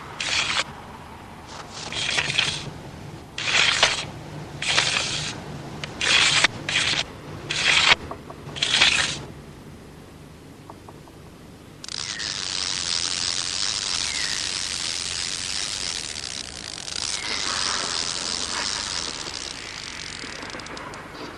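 Sound effects of long fishing rods being swung through the air: a run of short swishing whooshes, roughly one a second, for the first nine seconds. After a quieter pause a steady high hiss sets in, with a couple of faint whistling glides, all over a low steady hum.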